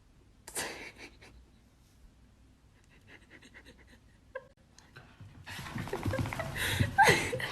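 A dog panting close by, with a short whine about four and a half seconds in; the panting grows louder over the last two seconds.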